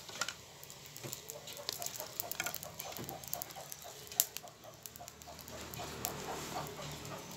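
Wood fire crackling in the firebox of a brick wood-burning stove, with sharp irregular ticks and pops as a hand pokes and shifts the burning sticks. Behind it, a faint quick run of short chirps goes on for several seconds.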